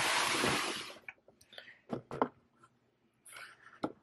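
A burst of rustling or scraping noise lasting about a second, then a few light knocks and clinks of dishes being handled and set down.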